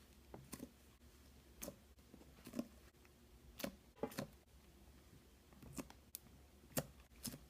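Slime being handled and pressed, giving about a dozen irregular sharp pops and clicks.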